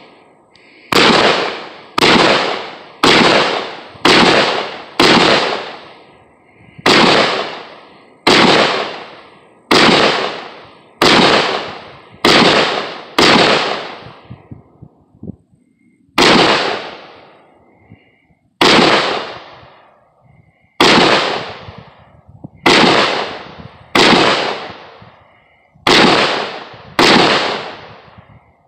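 A firearm fired shot by shot, about one shot a second, with a few longer gaps between strings; each shot rings out with a short echoing tail.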